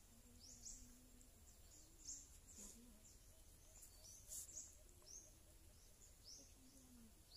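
Faint bird chirps: short high rising notes repeated every second or so over quiet outdoor background.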